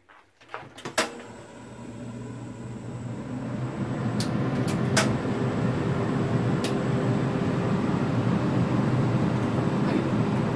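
Clicks as a gas stove burner under an empty wok is lit, then a steady rushing hum that builds over about three seconds and holds, with a few light taps in the middle.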